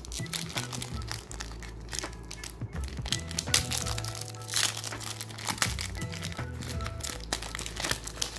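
A foil trading-card booster pack wrapper crinkling and crackling as it is handled and torn open, over background music with a steady bass line.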